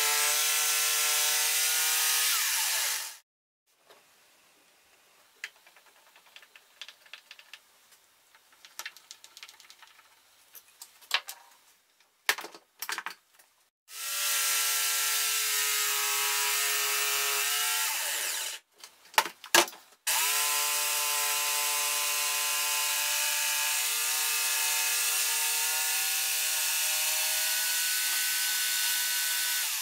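Corded jigsaw sawing through a thick wooden board, running in three stretches. It stops about three seconds in, its pitch falling as it winds down, and ten seconds of small clicks and knocks follow. It then cuts for about four seconds, and after a few sharp clicks starts cutting again about six seconds later.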